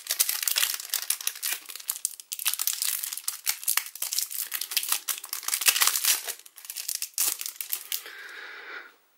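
Foil trading card pack crinkling and crackling in the hands as it is opened and handled, a dense run of sharp crackles. The crackling dies down about a second before the end.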